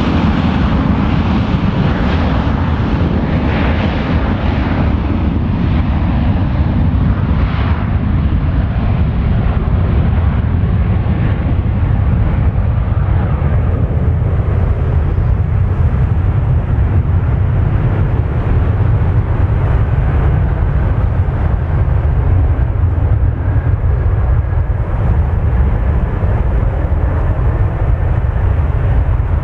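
Boeing 737-800's CFM56 jet engines running loud and steady, a deep rumble under a rushing hiss. The higher part of the sound dies away over the first ten seconds or so while the rumble stays.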